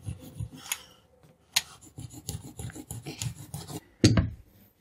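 Wooden rolling pin rolled back and forth over flour-dusted dough on a board, a low rubbing rumble with each stroke. There is one sharp knock about four seconds in.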